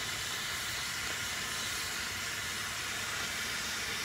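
Steady, even background hiss with no distinct events in it.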